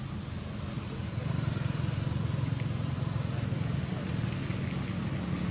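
A motor vehicle engine running with a steady low hum, growing louder about a second in.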